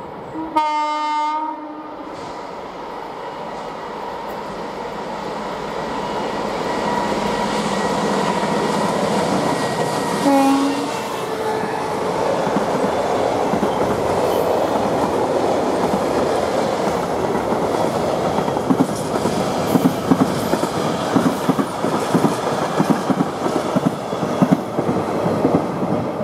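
Diesel-hauled freight train approaching and passing: the locomotive's horn sounds once for about a second near the start and again briefly about ten seconds in, the engine noise builds as it nears, then the freight wagons roll by with wheels clacking over the rail joints.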